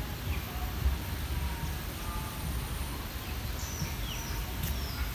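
Outdoor background noise: a steady low rumble with a few faint, short high chirps scattered through it.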